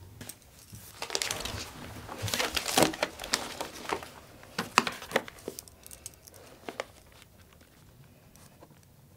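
Crinkling, rustling handling noise: dense crackly bursts over the first few seconds, thinning to scattered sharp clicks and dying away for the last couple of seconds.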